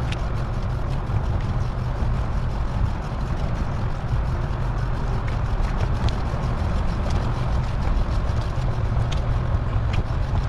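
Steady wind rumble on the microphone and road noise from a moving bicycle, sped up four times, with a few faint clicks.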